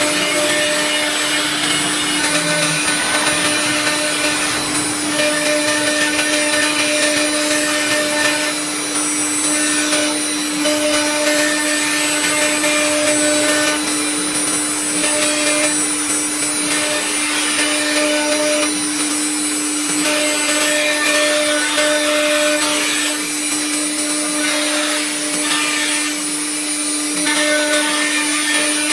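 ATC CNC router's spindle running at a steady speed with a constant whine, over a loud rushing noise that swells and eases every few seconds.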